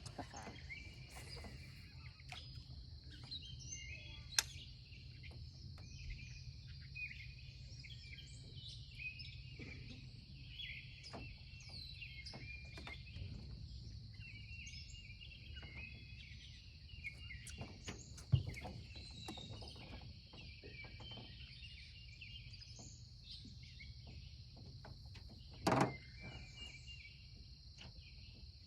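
Birds chirping and singing over a steady, high-pitched insect drone and a low, steady rumble. There are a few sharp knocks, one about four seconds in, one past halfway and one near the end.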